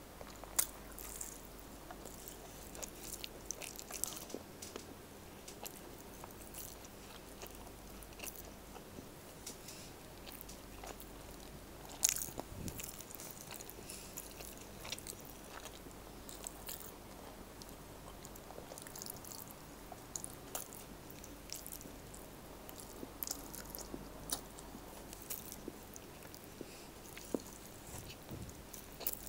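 Close-miked mouth sounds of a person chewing a mouthful of rice and beef stew eaten by hand. Many small, sharp clicks run through the chewing, and one sharp click about 12 seconds in is the loudest.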